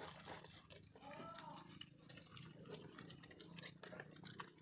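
Pigs chewing and crunching leafy greens at a feeding trough: faint, irregular wet clicks and crunches of munching.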